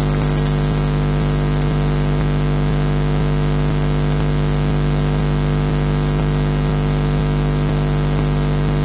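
Steady electrical hum and hiss on a nest camera's audio feed, with a brief cluster of faint crackles at the start and a few more around four seconds in.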